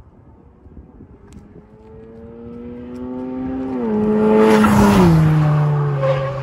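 Modified Audi S3's turbocharged four-cylinder with a hybrid turbo and straight-piped exhaust, accelerating hard toward and past the microphone. The engine note grows louder and climbs in pitch, is loudest as the car goes by about four to five seconds in, then drops sharply in pitch and fades as it pulls away.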